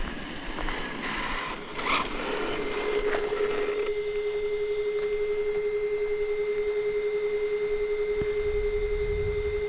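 A steady electronic tone at one unchanging pitch begins about two seconds in and holds without a break.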